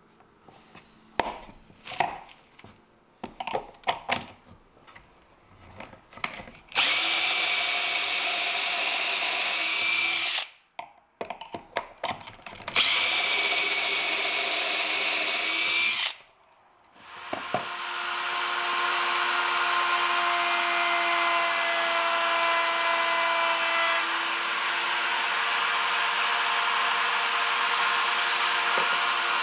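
Knocks and clicks as a board is set in a pocket-hole jig, then a cordless drill bores two pocket holes through the jig, each a steady run of about three and a half seconds with knocks between them. After a short pause, a router in a router table starts and runs steadily to the end.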